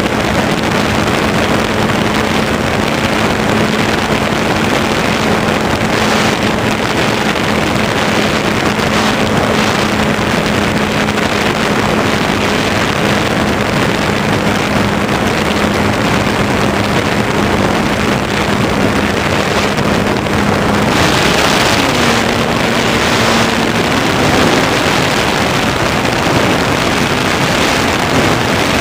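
Onboard sound of an Easy Glider Pro RC motor glider in flight: its electric motor and spinning propeller give a steady hum under heavy wind noise from the airflow over the microphone. About 21 seconds in, the hum steps up slightly in pitch and the wind noise gets a little louder.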